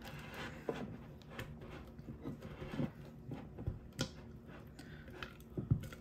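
Wooden spoon stirring thick sourdough starter in a glass mason jar: soft scraping with irregular light knocks and clicks of the wood against the glass.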